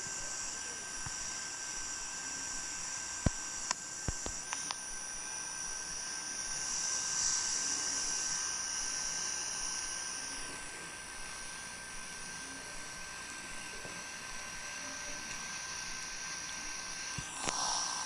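Steady hiss of an open broadcast audio line, with a thin high whine and faint steady tones under it. A few sharp clicks come about three to four and a half seconds in, and the hiss swells for a few seconds in the middle.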